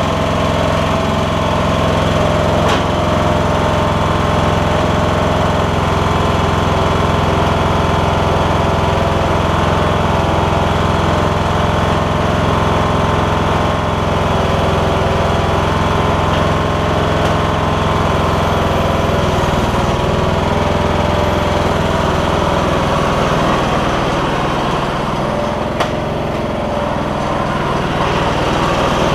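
Kohler Courage engine of a Troy-Bilt Bronco lawn tractor running steadily, its note shifting slightly about three-quarters of the way through. A single sharp click near the end.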